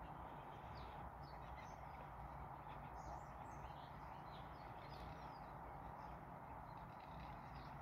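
Faint, distant small birds chirping and singing in many short, high notes over a steady background hiss.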